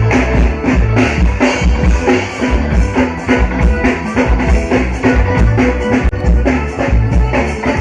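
Live band playing amplified music through a PA during a soundcheck, with drum kit and bass drum to the fore and guitar over a steady beat.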